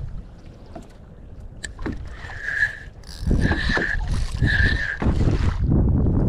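Spinning fishing reel being wound in, with a short squeak repeating about once a second, over wind rumble on the microphone.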